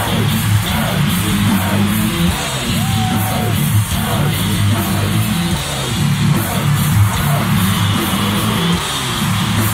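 A heavy metal band playing loud and continuous, with guitars and drums.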